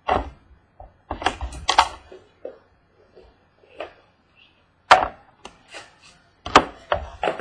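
Trading-card box and its packaging being handled and opened on a table: irregular sharp knocks and taps, the loudest near five seconds in and about six and a half seconds in.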